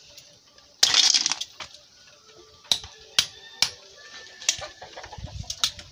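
Cracked bagongon sea-snail shells crunching and clicking as the meat is picked out of them by hand: a longer crunch about a second in, then a string of separate sharp clicks of shell on shell.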